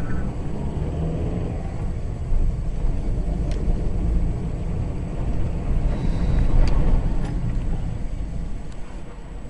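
Heavy low rumble of storm-force wind gusts and road noise heard from inside a moving car, swelling to its loudest a little before seven seconds in, with a few faint knocks.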